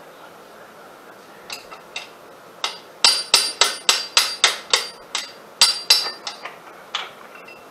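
Hammer blows on the steel rear axle assembly of a John Deere 4300 tractor, knocking at an axle that won't come out: about twenty sharp, ringing metal strikes. A few come singly at first, then a fast run of about four a second, a brief pause, and a handful more.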